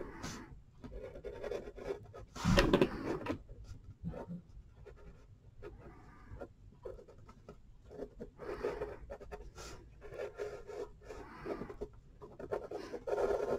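Thin Sharpie marker tip rubbing and scratching over paper in short repeated strokes as lines are inked over, with a louder burst of rustling about two and a half seconds in.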